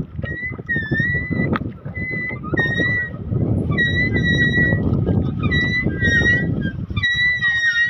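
Wind and water noise on a small boat out on a lake, with a string of short, high squeaky notes repeating every half-second or so and growing busier near the end.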